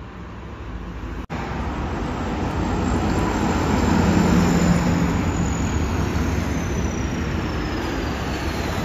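Swaraj 855 FE tractor's three-cylinder diesel engine running as it drives up the highway, growing louder as it approaches over passing road traffic, with a thin high whine falling slowly in pitch in the second half.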